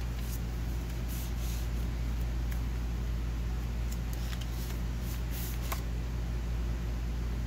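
Paper pages of a handmade junk journal rustling and ticking as they are handled and turned, with a few soft swishes and small clicks, most of them past the middle. Under it runs a steady low hum.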